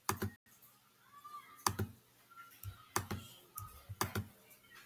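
Computer mouse and keyboard clicking: a few sharp clicks, mostly in quick pairs about a second apart.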